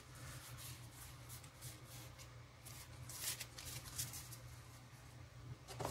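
Magic: The Gathering cards being handled: a stack flipped through and cards slid out and laid down on a table, making faint, short rustles and swishes of card stock.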